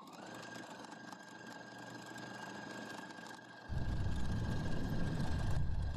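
Computerized sewing machine running a row of decorative stitching on denim: the motor starts up with a brief rising whine and holds a steady high hum, and about two-thirds of the way through the stitching gets much louder and heavier.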